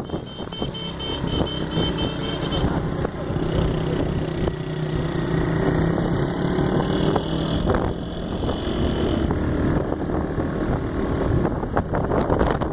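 Motor vehicle engine running steadily under way, with a hum that rises slightly in pitch a few seconds in and eases near the end, over road and wind noise.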